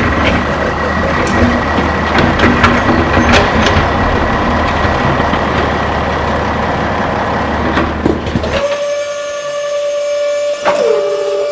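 Rumbling engine-like machine noise with scattered clicks and rattles. About eight and a half seconds in it cuts abruptly to a steady high whine, which near the end dips in pitch for a moment and comes back.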